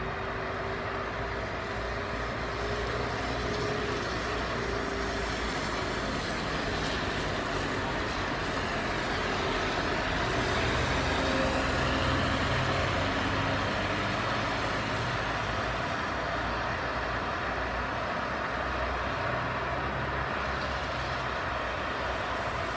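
Embraer 195-E2's Pratt & Whitney PW1900G geared turbofan engines running at low taxi power: a steady jet engine noise that grows a little louder about halfway through.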